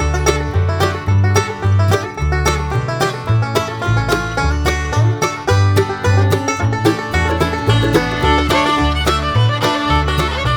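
Background bluegrass-style music: banjo picking over a steady bass beat, with fiddle.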